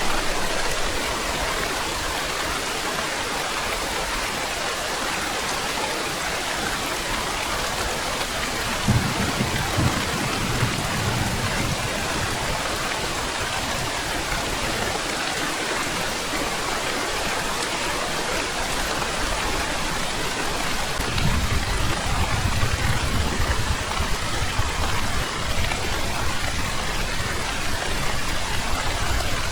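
Steady heavy rain with a constant hiss. Two low rumbles of thunder swell up and fade, one about nine seconds in and another about twenty-one seconds in.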